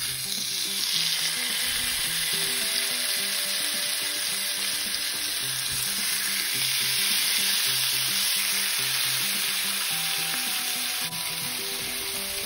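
Marinated chicken legs sizzling in hot olive oil in a cast iron skillet. The sizzle breaks out as the first leg goes into the pan and keeps on steadily as more legs are laid in.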